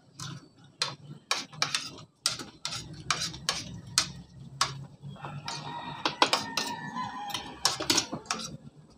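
Spoons and forks clinking and scraping against plates as two people eat, a quick irregular run of sharp clicks.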